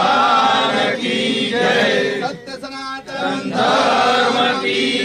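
Men's voices chanting a Hindu devotional chant together, in drawn-out phrases with a short break a little past halfway.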